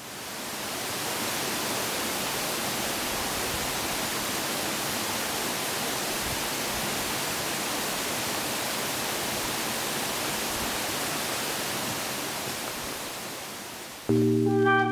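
Steady rushing of running water, an even hiss that fades in over the first second and holds level. Near the end it eases slightly, and a sustained music chord comes in.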